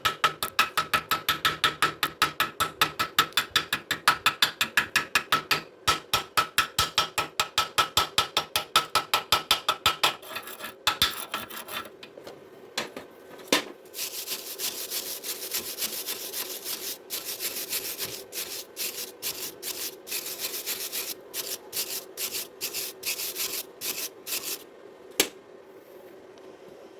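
Hand tools working on welded steel rebar: rapid sharp metal strikes, about five a second, for roughly ten seconds. After a short pause comes a hissing scrape in strokes with brief breaks, then a single knock near the end.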